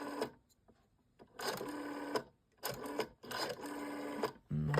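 The rotary dial of a 1980s ITT rotary telephone being pulled round and let go, whirring as it spins back to rest. This happens three times in a row, with short silent pauses between.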